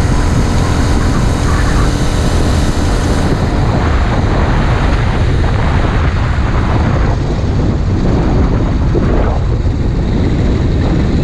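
Small four-stroke engine of a motorized bicycle running under way during its break-in. A steady buzzing note for the first three seconds or so gives way to a rougher, noisier sound.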